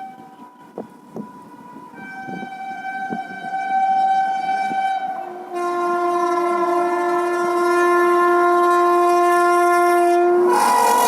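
WAP-7 electric locomotive's triple-tone horn sounding as the express approaches at speed: the notes step down from high to middle to a low note held about five seconds, growing louder. Near the end the train passes, the horn's pitch drops and the rush of the train and the wheels on the rails take over.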